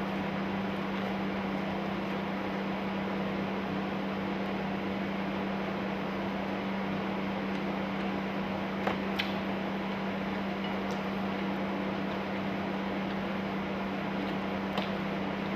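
Steady machine hum with a strong low drone, like a fan or appliance running in a small room, and a few light clicks about nine seconds in and near the end.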